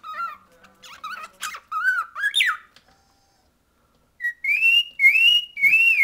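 Cockatiel whistling: a run of short warbled chirps that ends in a quick upward squeak, then, after a pause of over a second, three rising whistled notes in quick succession.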